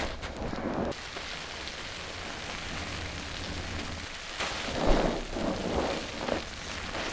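Wet sponge full of shampoo suds being squeezed and rinsed in water: a steady watery hiss at first, then from about four and a half seconds in several squishing squeezes, one after another.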